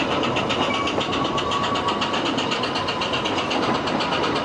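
Ffestiniog Railway narrow-gauge steam train running, heard from inside a passenger carriage: a fast, even clatter of wheels and running gear on the rails, with a faint steady whine over it.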